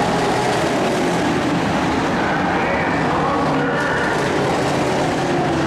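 Several race car engines running at speed together as the cars pass one after another at the finish, a steady dense engine sound with pitches rising and falling as each car goes by.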